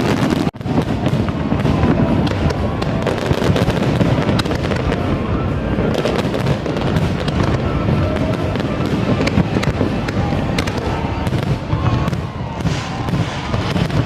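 A fireworks display bursting without pause: many overlapping bangs and crackles, with music playing underneath.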